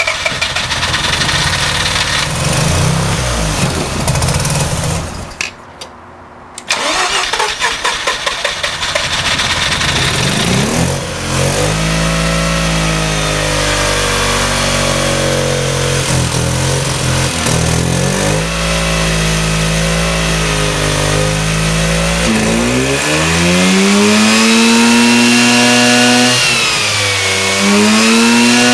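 Car engine cranked over by the starter with a rhythmic chugging; the cranking stops for about a second, starts again, and the engine catches about eleven seconds in, a hard start. It runs with its speed rising and falling, then is revved up high and held there near the end.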